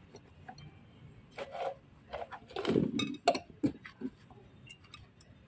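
Small loose metal parts, bolts and washers from a dismantled truck air dryer, clinking and knocking as they are picked up and moved by hand. A handful of short sharp clinks, bunched together and loudest a little past the middle.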